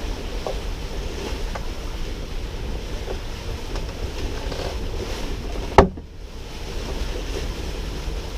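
Wind and water rushing steadily past a sailboat under sail, with wind buffeting the microphone. A single sharp knock comes about two-thirds of the way in.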